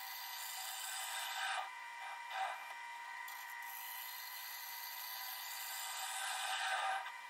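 Hollowing tool cutting inside a spinning sycamore box on a wood lathe: a steady scraping hiss over a faint steady whine, with two brief louder scrapes between one and three seconds in.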